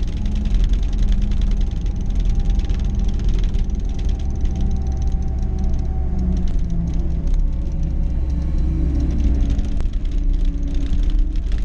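John Deere 325G skid steer's diesel engine running under load while the hydraulic sweeper broom spins, with a dense patter of ticks from swept grit and gravel. The engine's pitch shifts a little midway and again near the end.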